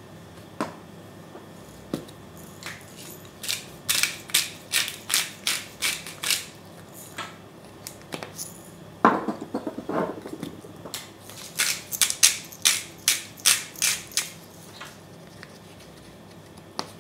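Hand-twisted spice grinders grinding pepper and salt: two runs of rhythmic crunching clicks, a few seconds apart, with a couple of knocks in between as the grinders are handled.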